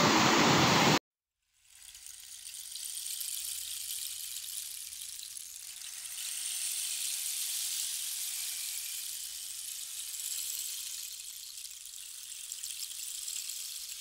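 A loud rushing noise cuts off abruptly about a second in. After a short silence, a soft, even hiss of light rain fades in and swells and eases gently.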